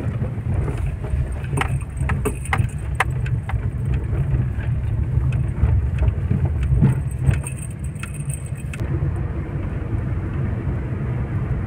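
Cabin noise of a car driving slowly: a steady low rumble of engine and tyres, with scattered sharp clicks and rattles over rough road surface for the first nine seconds or so, easing to a smoother rumble near the end.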